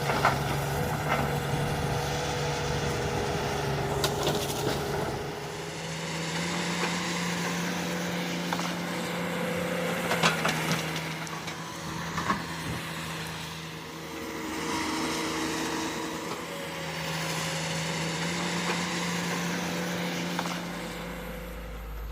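Komatsu hydraulic excavator's diesel engine running steadily under working load, its pitch stepping up slightly about five seconds in, with a few sharp knocks and clanks from the digging.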